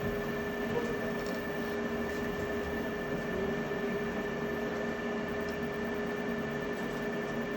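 A steady mechanical drone: an even rumble carrying a few constant hum tones, with no starts, stops or separate knocks.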